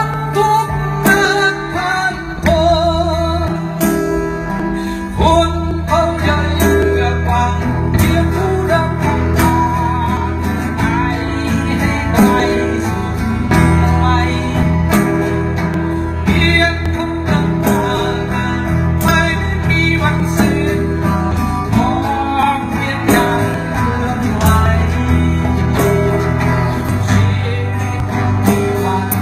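Live acoustic band playing: two acoustic guitars with a djembe keeping a steady beat.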